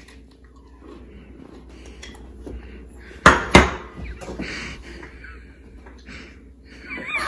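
Kitchen handling noise: two sharp knocks about a third of a second apart near the middle, with fainter clatter and rustling around them.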